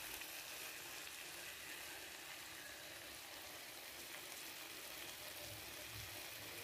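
Stuffed eggplant rolls in tomato sauce sizzling and simmering in a frying pan: a faint, steady hiss.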